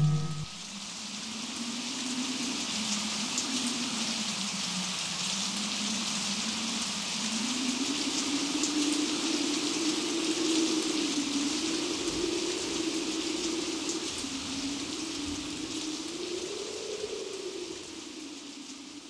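Steady rain-like hiss with one low tone that wavers slowly up and down beneath it, swelling gradually and then fading out near the end.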